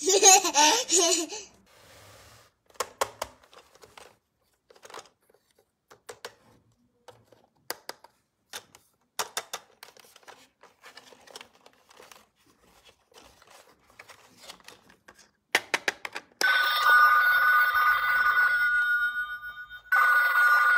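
Laughter dies away, followed by scattered light clicks and taps. About four seconds before the end a phone starts ringing with a steady two-tone ring, pauses for about a second and rings again.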